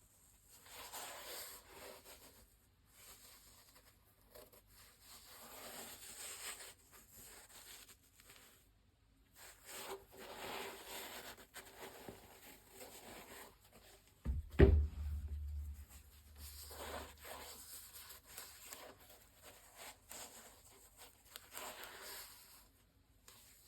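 Bursts of rustling and rubbing as a sneaker and its packaging are handled during unboxing, with one heavy thump about two-thirds of the way through.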